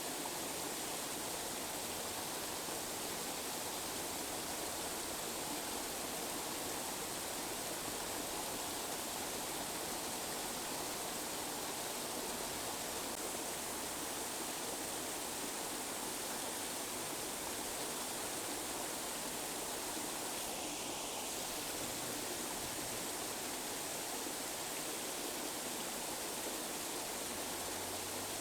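Steady, even rushing noise of a tinnitus masking track, holding the same level throughout with little deep bass.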